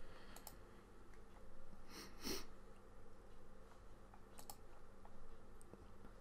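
Faint, scattered clicks of a computer mouse, several of them in quick pairs, the loudest pair about two seconds in, over a quiet room hum.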